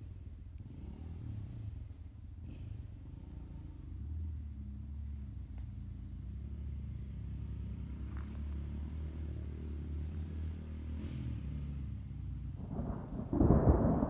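Thunder: a long, low rolling rumble that builds, then a much louder peal of thunder breaks near the end.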